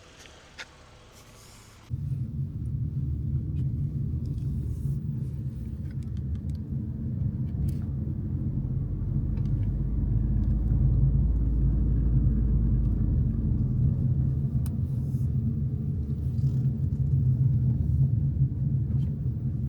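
Car driving slowly over a rough, potholed dirt road: a steady low rumble of tyres and suspension that starts suddenly about two seconds in, with a few faint knocks.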